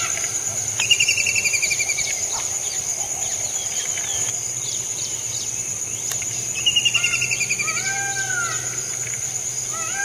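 Birds calling: two rolling, slightly falling trills, one about a second in and one about two-thirds of the way through, with arched whistled notes repeating near the end. A steady high-pitched insect drone runs underneath.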